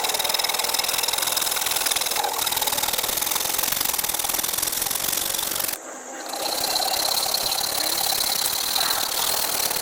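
A handheld power tool running with a rapid, steady rattle and a high whine. It cuts out briefly about six seconds in, then runs again.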